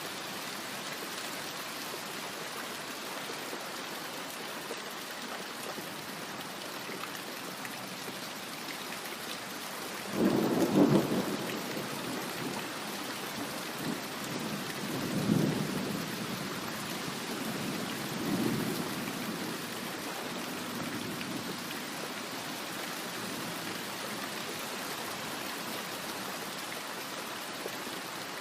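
Steady rain with a thunderclap about ten seconds in, followed by two fainter rolls of thunder that die away.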